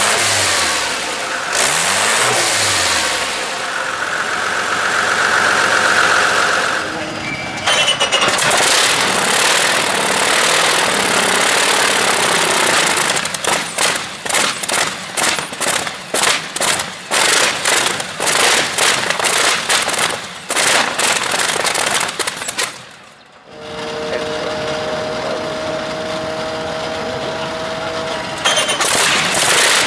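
Shvetsov ASh-62 nine-cylinder aircraft radial engine being started from cold: it fires unevenly in a string of irregular pops and coughs as the cylinders catch, then settles into a steadier run near the end. A different large engine is heard for a moment at the start.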